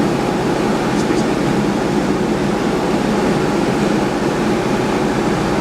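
Diamond DA20-C1's four-cylinder Continental IO-240 engine and propeller running with a steady drone.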